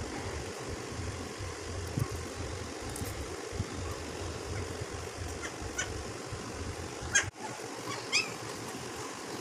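Newborn Belgian Malinois puppy giving a few short, high squeaks in the second half, over a steady low background hum.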